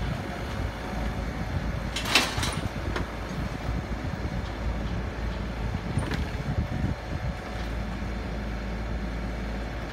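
Kubota U35 mini excavator's diesel engine running steadily as its arm lifts the truck's steel loading ramps, with one loud metal clang about two seconds in and a lighter knock about six seconds in as the ramps shift and bang into place.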